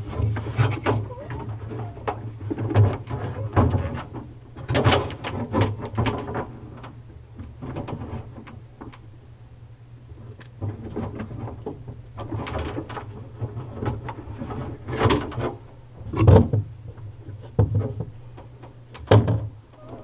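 Handling of a plastic refrigerator evaporator fan motor and its wiring quick-connect plug: scattered plastic clicks, taps and knocks as the plug is worked at, over a steady low hum.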